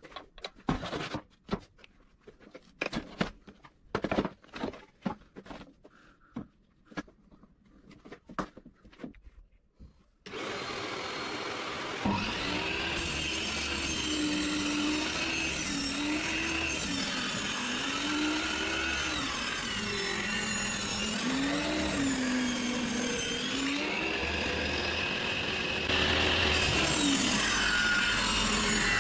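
Knocks and clatter of tools and wood being handled, then about ten seconds in a table saw starts and cuts through a pine board stood on edge, shaping a raised panel. The saw's pitch dips and rises repeatedly as the blade is loaded.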